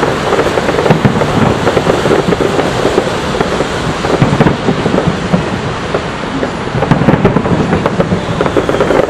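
Fireworks display: many aerial shells bursting at once, a dense, overlapping barrage of bangs and crackles that eases slightly about two-thirds of the way through.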